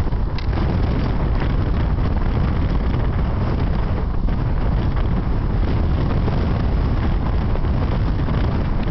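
Strong wind blowing hard across the microphone: a steady, heavy noise that does not let up.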